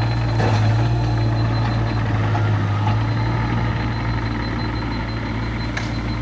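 Diesel engine of a piece of heavy construction equipment running steadily with a low, even hum.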